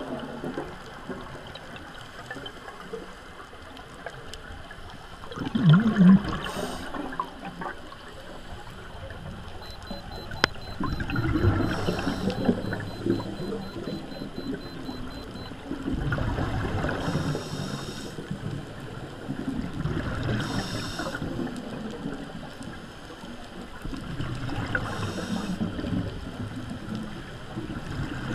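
Scuba diver breathing underwater through a regulator: a short hiss of each inhalation, then the rushing burble of exhaled bubbles, repeating every few seconds.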